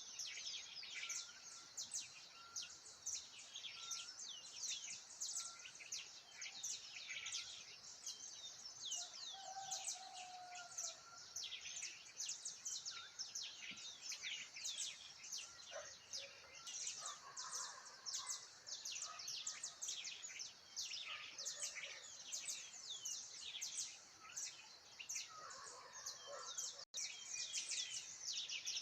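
A dense chorus of many wild birds chirping and twittering without pause, mostly short, quick, falling notes, over a faint steady high tone.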